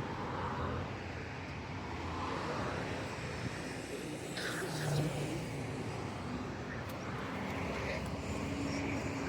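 Steady motor vehicle and road traffic noise, with a low steady engine hum coming in during the second half.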